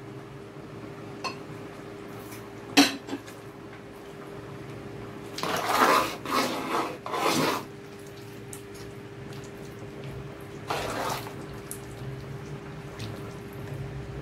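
A metal spoon clinking against a large aluminium stockpot and stirring a simmering stew. There is one sharp clink about three seconds in, a couple of seconds of stirring and sloshing around six to seven seconds, and another short stir near eleven seconds, over a steady low hum.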